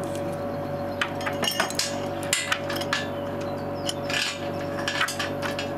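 Metal clamping fixture of a chainsaw pipe-cutting rig being handled and fitted onto a large plastic pipe: irregular metallic clinks and taps, over a steady hum.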